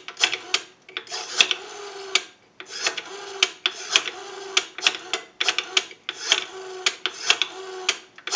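Rotary dial of a Western Electric 236G payphone being dialed, several digits in a row. Each digit is a pull of the finger wheel followed by its spring-driven return, a steady whir with a string of sharp clicks.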